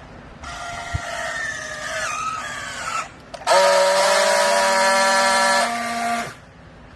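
Hydraulic baler's pump whining in two spells: a weaker one that wavers in pitch, then a louder, steady one lasting about three seconds that stops abruptly.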